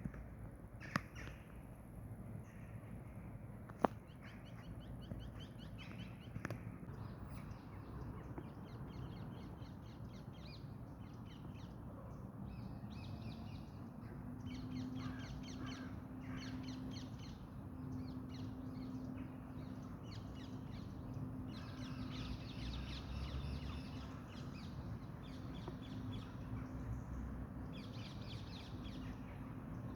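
Birds calling in bursts of rapid, harsh, chattering notes, repeated again and again. Two sharp clicks come in the first few seconds, and a steady low hum joins about halfway through.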